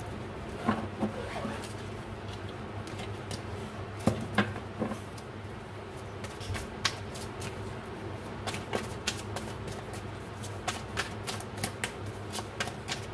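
A deck of tarot cards being shuffled by hand: papery slaps and clicks as the cards are pushed from hand to hand, coming quicker and denser in the last few seconds.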